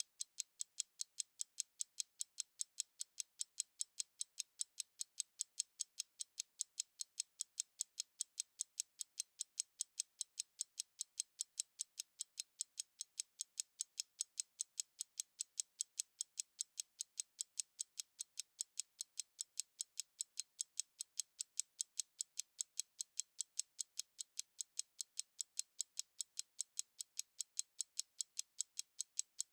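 Analog stopwatch ticking: a rapid, perfectly even run of light, high-pitched ticks, several a second, with no low end.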